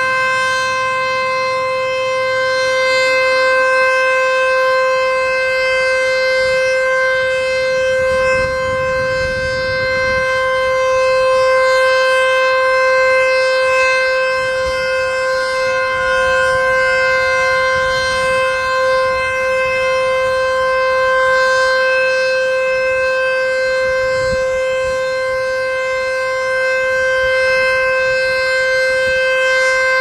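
ACA Screamer S-5 outdoor warning siren sounding a loud, steady tone held at one pitch, a scheduled test of the siren.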